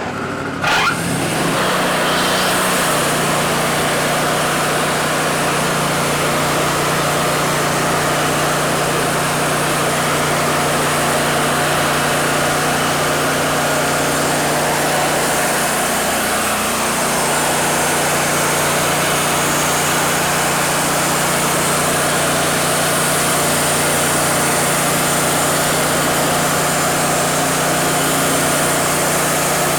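Wood-Mizer LT40 band sawmill throttled up about a second in, then running steadily at full speed with a constant engine hum as the band blade saws through a cedar log for a 4/4 slab.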